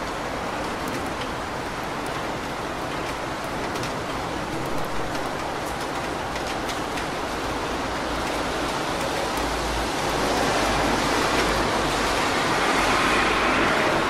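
Steady rain falling on a street, with scattered drip ticks. From about two-thirds of the way in, the hiss of car tyres on the wet road grows louder as a car approaches.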